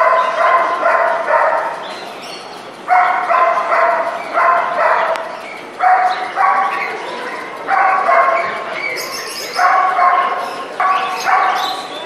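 A small dog yapping in quick runs of three or four high-pitched barks, a new run every second or two.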